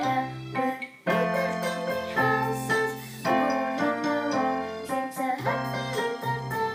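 Digital piano played with both hands: a beginner's method piece in single notes and chords, with a short break about a second in before the playing resumes.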